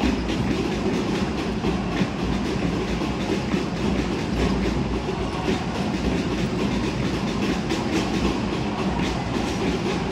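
Echoing basketball-arena noise: a steady hubbub and low rumble from the hall, with scattered sharp knocks of the ball bouncing on the hardwood court.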